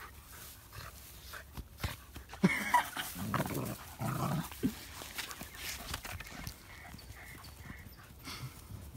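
Puppies playing rough over a ball, with a cluster of short growls and yelps from about two and a half to four and a half seconds in, and scattered scuffling sounds from their paws.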